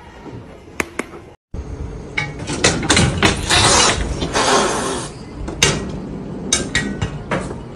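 Hard objects clattering and clinking, with many sharp knocks and bursts of rattling.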